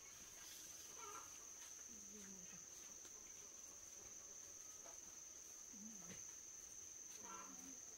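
Faint, steady, high-pitched trill of crickets in an otherwise near-silent background.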